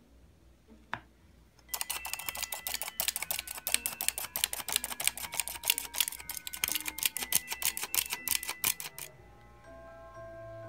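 Hand-squeezed metal flour sifter worked quickly, its handle and wire agitator clicking and rasping against the mesh several times a second as flour falls through. The clicking starts about two seconds in and stops near the end, leaving soft background music.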